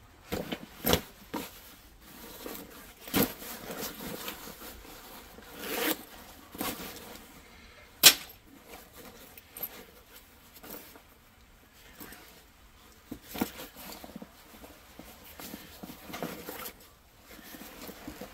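Military rucksack and its side pouch being handled: fabric rustling and scraping in irregular bursts, with a single sharp click about eight seconds in.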